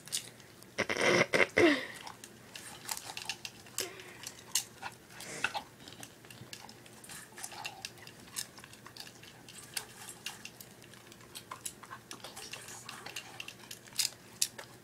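A dog eating popcorn from a stainless steel bowl: irregular crunching and clicks as its mouth works in the metal bowl, with a louder noisy burst about a second in.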